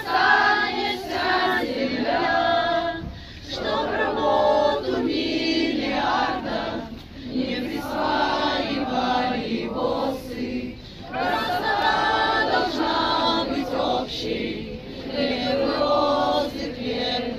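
A crowd of women singing together in unison, in phrases of a few seconds with short breaks between them.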